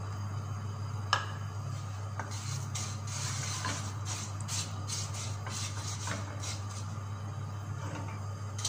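Wooden spoon stirring vermicelli frying in hot oil in an aluminium pot: a sharp knock about a second in, then a run of short scraping strokes against the pot with light sizzling, over a steady low hum.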